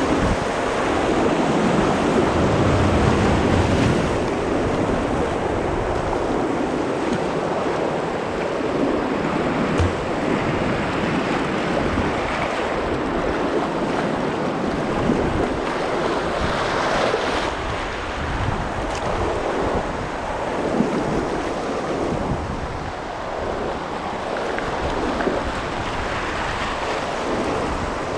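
River whitewater rushing: a steady wash of noise with no pauses.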